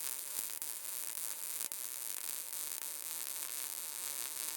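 MIG welder's arc crackling steadily as a small steel support piece is welded in, a fine hissing crackle with a faint steady hum under it.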